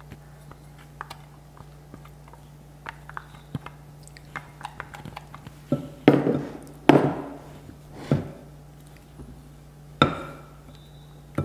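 Butter-and-batter mixture poured from a small glass bowl into cake batter with light clicks. Then a silicone spatula folds the batter in a glass bowl: several louder scrapes and knocks against the glass in the second half, and a sharp knock near the end.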